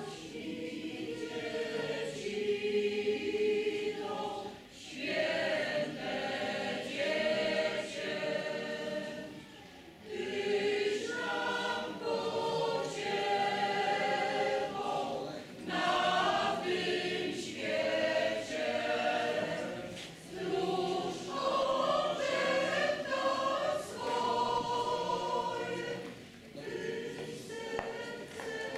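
Mixed choir of men and women singing, in phrases of about five seconds with brief breaths between them.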